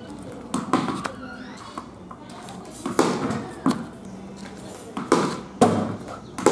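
A tennis ball being bowled and batted on a concrete pitch: sharp knocks as it bounces on the concrete and cracks off a wooden cricket bat, about six over a few seconds. A few faint, high chirps are heard between the knocks.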